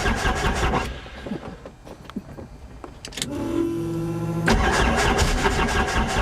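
Helicopter engine starting, with a loud rhythmic pulsing of about five beats a second. The pulsing stops after about a second, then a short steady whine, and it comes back suddenly about four and a half seconds in.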